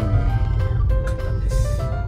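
Background music, a melody of held notes, over the low steady rumble of a car driving, heard from inside the cabin.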